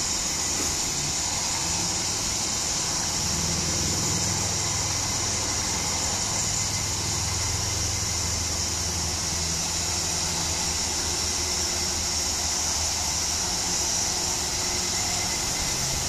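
Dense chorus of cicadas: a steady, high-pitched buzzing drone that does not let up, with a faint low hum beneath it.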